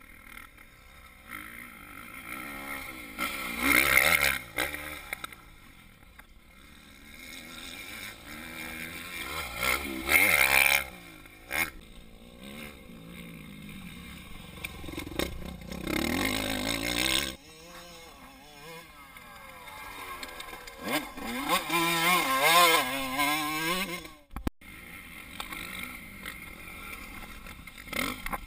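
Motocross dirt bike engines revving hard as the bikes ride past, the engine pitch rising and falling with throttle and gear changes. Four loud passes, each swelling up and then dropping away, with the sound breaking off abruptly a few times.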